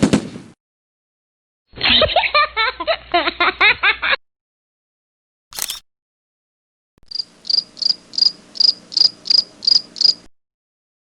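A string of short stock sound effects: a quick hit, a burst of laughing, a brief swish, then crickets chirping in a steady high pulse of about three chirps a second, the classic awkward-silence cricket effect.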